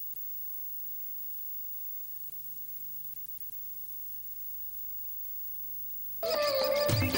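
Faint steady electrical hum with hiss. Music cuts in suddenly near the end and is much louder.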